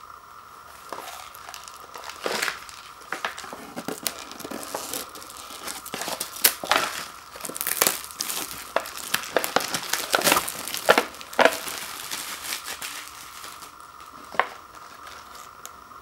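Clear plastic shrink wrap being torn open and peeled off an instant ramen bowl, crinkling and crackling in quick irregular snaps. It is busiest in the middle and thins out near the end.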